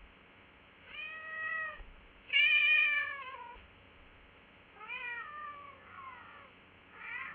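A cat meowing repeatedly: about five separate meows a second or two apart, each bending down in pitch at the end, the second the loudest and longest.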